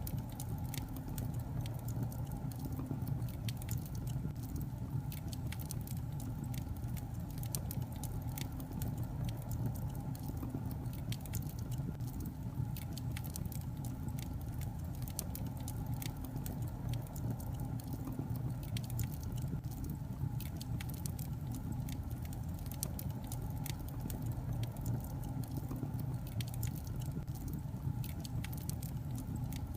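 Log fire crackling: irregular sharp pops and snaps over a steady low rumble.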